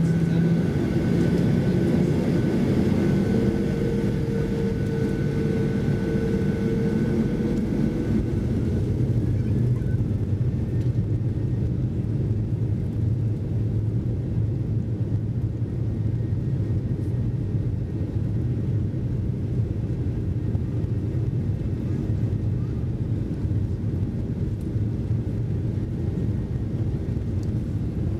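Cabin noise of a Boeing 737-800 rolling on the ground with its jet engines running: a steady low rumble. A faint whine sits on top and fades out about nine seconds in.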